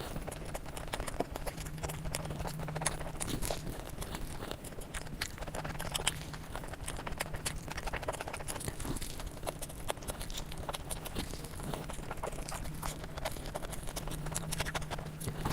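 Close-miked eating sounds: continuous wet chewing, smacking and small crackling clicks, irregular and without pause, over a faint low hum.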